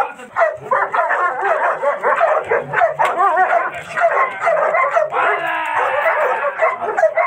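German Shepherd barking rapidly and without pause, the aggressive barking of a dog working a decoy in bite training. A long held cry rises over the barking about five seconds in.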